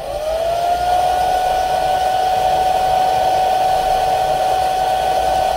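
Hot-air gun's fan motor spinning up with a rising whine, then blowing steadily with a constant whine over the rush of air. It is heating the double-sided tape under a phone's earpiece to soften it.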